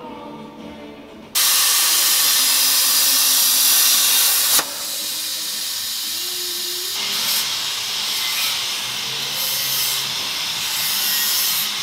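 A CNC plasma cutter cutting steel plate: a loud, steady hiss that starts suddenly about a second in and drops away about four and a half seconds in. In the last few seconds a hand-held grinder is worked against steel, giving a wavering high hiss.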